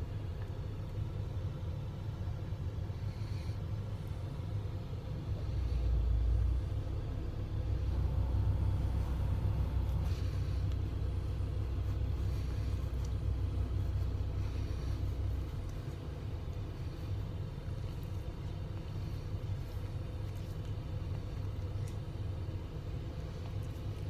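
Low steady rumble of a parked car's idling engine and air conditioning, heard from inside the cabin. It swells louder for about ten seconds partway through, then settles back.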